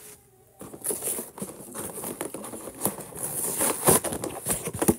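Cardboard-and-plastic toy blister pack being torn open by hand: irregular crackling, ripping and rustling of card and plastic, starting about half a second in.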